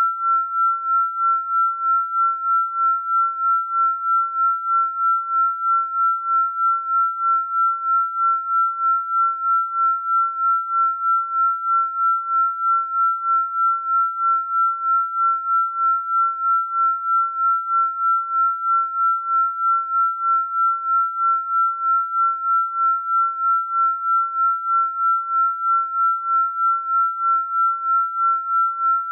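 A single pure electronic sine tone, steady and fairly high-pitched, pulsing evenly in loudness about three times a second.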